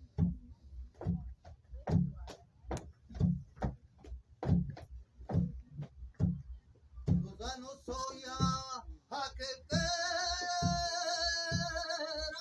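Djembe struck in a steady, slow beat to keep time for a flamenco martinete. About seven seconds in, a male flamenco singer begins the cante with wavering phrases, then holds a long note over the drum.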